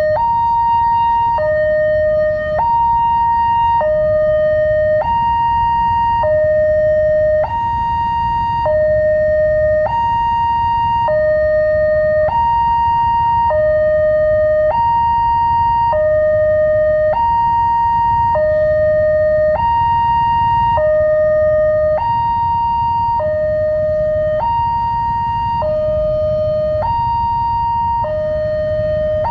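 Railway level-crossing warning alarm of the melodic Daop 8 Surabaya type, sounding a repeating high-low two-tone chime, each tone held about a second, while the barrier is down. A low rumble runs underneath.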